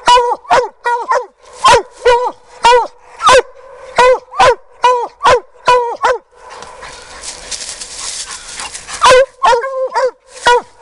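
Hounds barking treed, reared up against the trunk: a fast run of loud barks, each dropping in pitch, about two to three a second. From about six to nine seconds in, the barking thins under a rustling, scraping noise, then the barks pick up again near the end.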